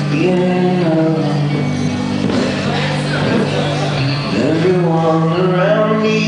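A man singing with his own electric guitar accompaniment: held, sliding sung notes over steadily played chords.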